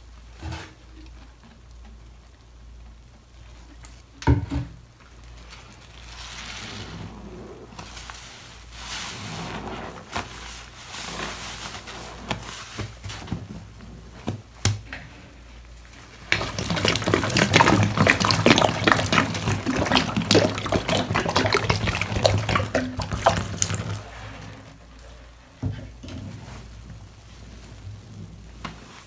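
Wet foam sponges being squeezed and worked in a basin of thick soapy water: squelching, with the suds crackling and water splashing. Quieter at first with a single knock about 4 seconds in, then a loud, dense stretch of squishing and splashing from about 16 to 23 seconds.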